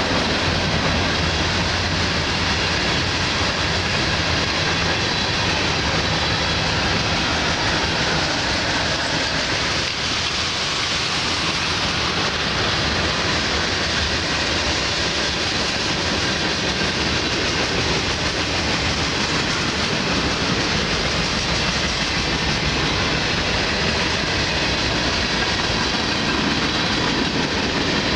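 Freight train cars (covered hoppers, tank cars, boxcars) rolling past at steady speed: a continuous, even rumble and rattle of steel wheels on rail, with light clickety-clack.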